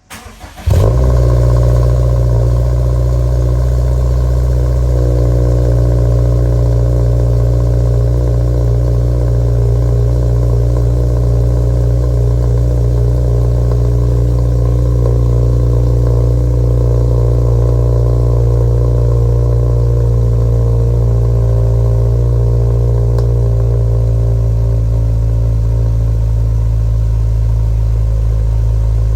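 Subaru WRX's 2.4-litre turbo flat-four (FA24) starting up through a MAPerformance street catback exhaust with a catted P&L J-pipe: a brief crank, the engine catching with a loud flare under a second in, then a steady idle whose note shifts slightly about two-thirds of the way through.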